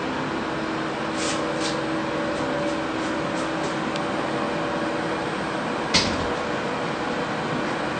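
Steady background hum with a few faint taps and one sharp knock about six seconds in, as the glass shower side panel is handled back into its bottom track.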